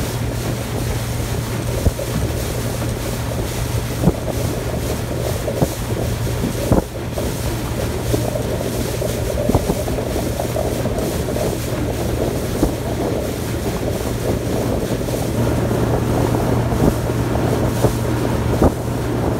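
Motorboat running on open water: a steady low engine hum under wind rushing over the microphone, with a few sharp knocks now and then.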